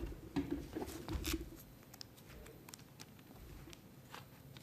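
Paper pages of a small book being leafed through: a scatter of soft rustles and ticks.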